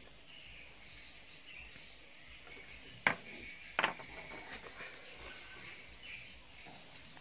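Two sharp plastic clicks, about three seconds in and again a moment later, from sprayer nozzle parts being handled, over a faint steady background hiss.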